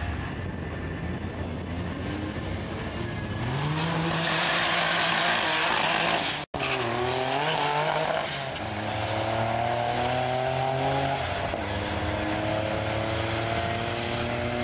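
Two drag-race cars, one a 1987 Nissan 300ZX Turbo, launching from the line at full throttle about three and a half seconds in. Their engine pitch climbs and drops back with each gear change as they run down the strip. The sound cuts out for an instant about six and a half seconds in.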